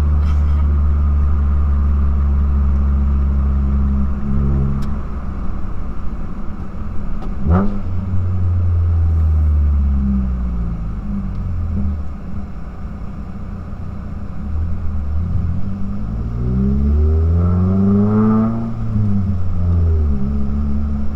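2009 Mazda3's 2.3-litre four-cylinder engine running through a straight-piped exhaust from a racing header, loud and droning under light throttle. Its note holds steady at first, then rises and falls several times as the revs climb and drop, with the highest rise near the end.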